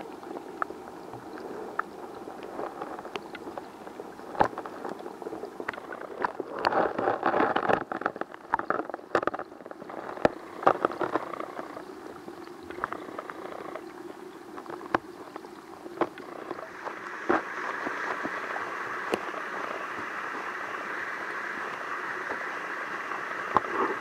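Stream water heard through an underwater camera: gurgling and bubbling with scattered sharp clicks and knocks, busiest about a third of the way in. In the second half it settles into a steadier rush of flowing water.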